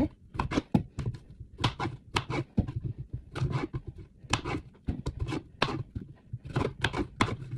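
Kitchen knife chopping cucumber into chunks on a cutting board: a run of sharp, irregular knocks, about two a second, as the blade cuts through and strikes the board.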